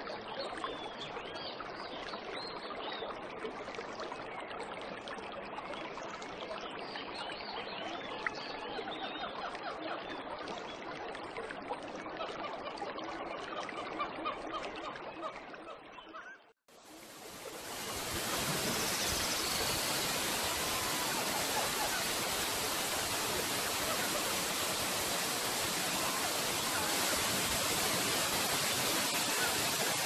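Waterfall pouring into a pool: a steady rush of water with many birds chirping over it. About halfway through the sound cuts out for a moment and returns as a louder, fuller rush of falling water.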